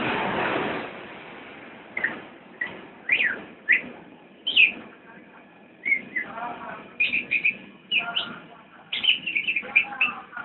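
A songbird chirping in short, sharp high notes, single calls a second or so apart at first, then quick runs of several notes near the end. A loud rushing noise in the first second fades away as the chirping begins.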